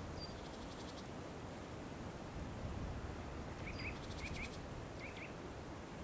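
Songbirds calling outdoors: brief high whistles, a couple of rapid ticking trills, and three quick paired chirps in the middle. Under them runs a steady low rumble of background noise.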